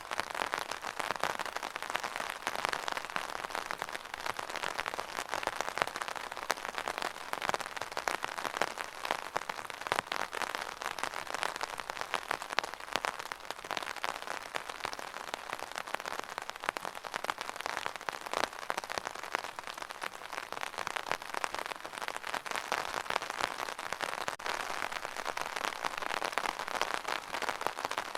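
Steady rain falling, a dense patter of many small drops hitting a surface.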